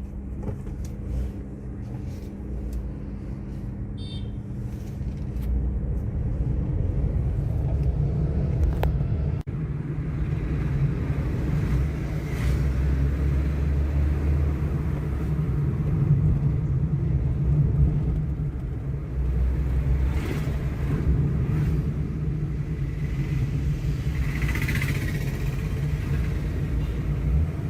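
Steady low rumble of a car driving, heard from inside the cabin, with a few faint clicks and knocks over it.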